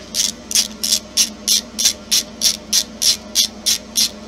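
A hand tool working out the screws from an RC car's motor mount: an even run of short rasping strokes, about three a second.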